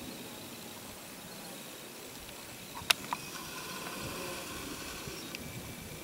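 Quiet outdoor ambience: a soft steady hiss with faint high thin tones, broken by a sharp click about three seconds in and a smaller click just after.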